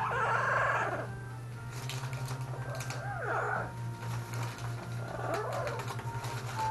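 Double yellow-headed Amazon parrot purring as it settles to sleep: a low, rapid, steady pulsing.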